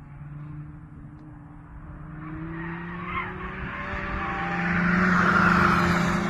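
Audi RS3 race car approaching and passing at speed. The engine note holds steady as it grows louder to a peak about five seconds in, then starts to fade, with tyre noise from the track as it goes by.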